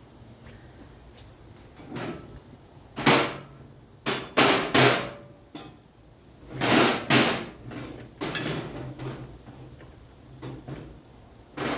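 Loud clanks and knocks of steel parts of a motorcycle lift table being handled and fitted during assembly, in clusters of several strikes a few seconds apart.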